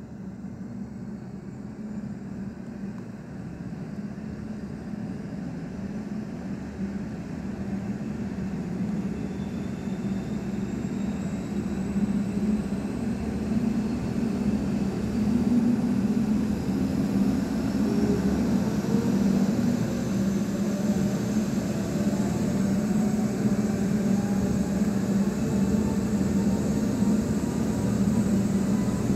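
Rescue helicopter starting up: the turbine whine rises in pitch as the engines and rotor spool up. It grows louder over the first dozen seconds or so, then runs steadily at speed.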